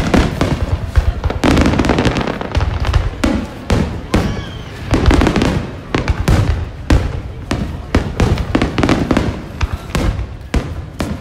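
Aerial fireworks display going off overhead: a dense, continuous run of loud bangs and crackling bursts, several a second.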